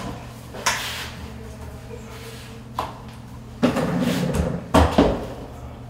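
Plastic-and-metal knocks and sliding rubs of an expandable closet rod-and-shelf tube being worked into its wall-mounted tube receiver. A few separate sharp knocks, then a scraping rub with more knocks near the end.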